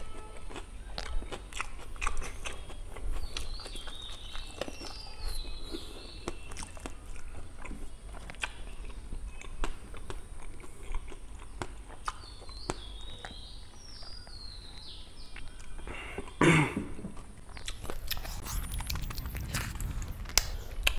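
Close-up eating sounds of black pork curry and rice eaten by hand: wet chewing with crunches and lip smacks, many small clicks. A louder burst of mouth noise comes about sixteen seconds in and a longer, hissing one near the end.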